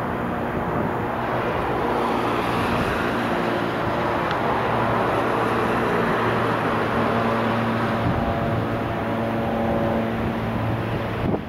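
Steady road-traffic noise with a low, even engine hum running under it.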